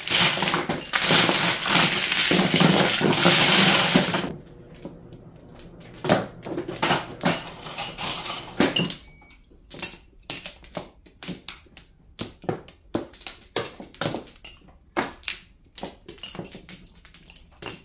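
Mahjong tiles clattering loudly for about four seconds as the players sweep them across the table into an automatic mahjong table's centre opening. It then goes quieter, and from about ten seconds in there is a run of sharp separate clicks of tiles and plastic chips being set down.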